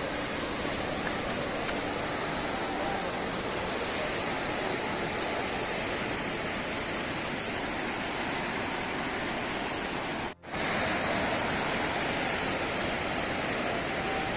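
Swollen river in flood rushing steadily past, an even wash of water noise; the sound cuts out for a split second about ten seconds in.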